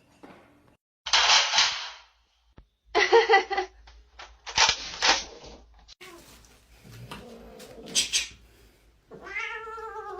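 Cat yowling: three short, harsh calls in the first half, then a long meow near the end that rises and then falls in pitch.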